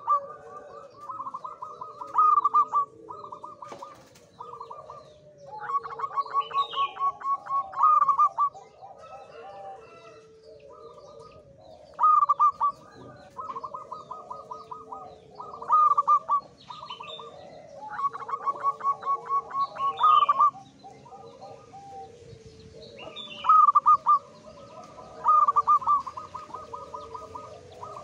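Male zebra dove (perkutut) singing: phrases of rapid, staccato cooing notes, each a few seconds long, repeating about every five or six seconds. Softer, lower calls run underneath. A male singing this much is in strong breeding condition.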